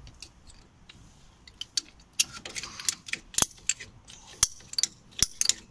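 Irregular sharp metallic clicks and knocks, with a short scrape about two seconds in, as a screwdriver levers the worn front brake pads of a 2014 MG3 loose in the caliper bridge.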